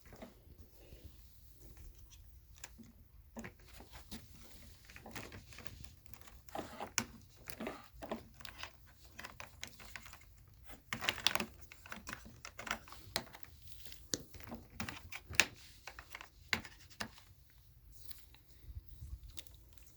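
Irregular clicks, knocks and short rustles of plastic being handled, busiest in the middle. No motor is running.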